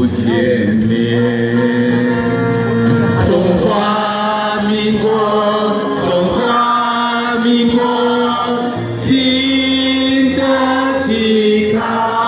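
A large mixed choir singing a minge (folk) song together over recorded backing music, in long held notes.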